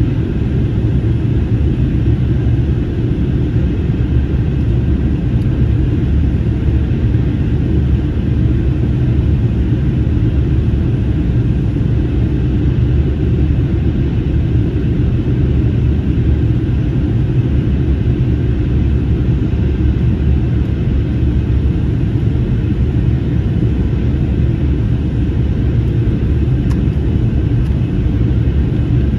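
Steady cabin rumble inside an Airbus A321neo in flight: airflow noise and its Pratt & Whitney geared turbofan engines running, heard from a rear window seat. The level stays even, with no distinct events.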